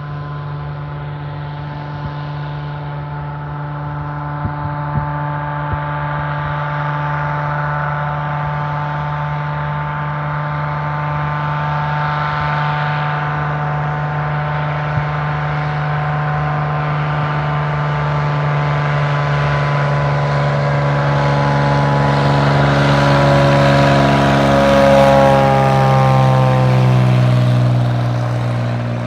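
Light propeller floatplane's piston engine and propeller droning steadily, growing louder as it approaches. Its pitch falls as it passes close by near the end.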